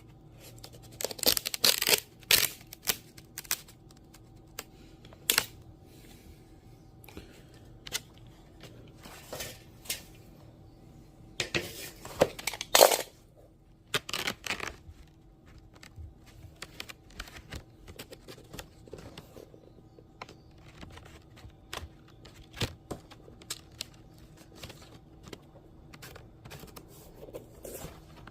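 Thin wood veneer and paper veneer tape being handled while seaming veneer pieces together: bursts of rustling, crinkling and tearing, with many small ticks and taps in between.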